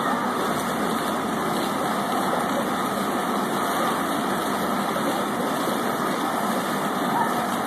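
Splash-pad fountain jets spraying, a steady rush of water.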